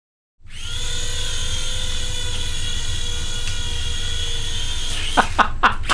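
Hasbro remote-control Republic Gunship toy helicopter's electric motors and rotors running with a steady whine over a low whir. Near the end the pitch drops sharply several times in quick succession, about four times a second, as the spinning rotor blades strike something and bog down.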